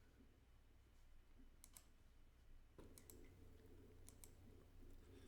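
Faint computer mouse clicks, mostly in quick pairs, a few times over near silence.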